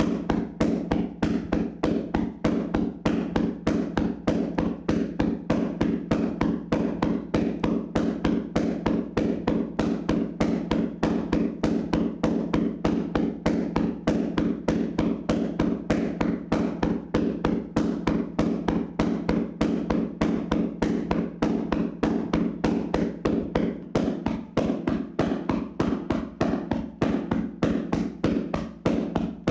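Vigorous tapping massage: hands slapping rhythmically on a person's body at about four strikes a second, steady and unbroken.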